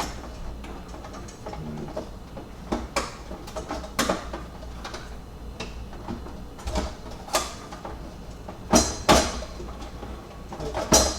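Plastic water tank of an espresso machine knocking and clicking against the machine as it is pushed into place again and again, a run of sharp knocks with the loudest near the end. The tank won't seat because the power cord is caught underneath it.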